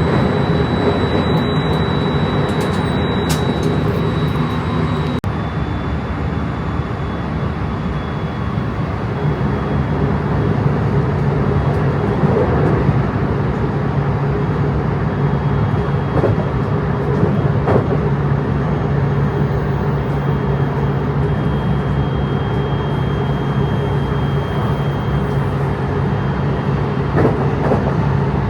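A JR train running, heard from inside the carriage: a steady rumble and low hum, with a few faint knocks from the rails.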